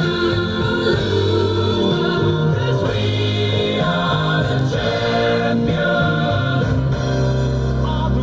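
Choral music: a choir singing held, sustained chords that shift every second or two.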